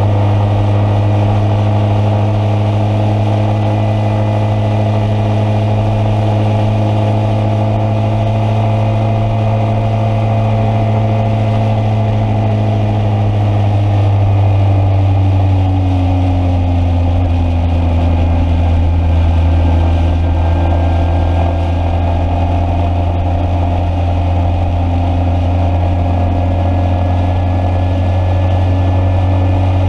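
Motorcycle engine running steadily under way, its pitch dropping about halfway through and then holding at the lower pitch.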